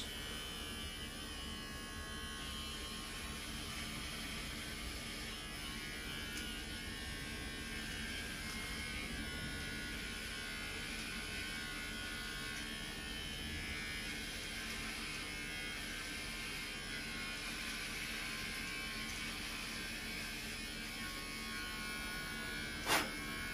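Remington QuickCut cordless hair clippers running steadily while cutting hair, a quiet even buzz, with a single click near the end.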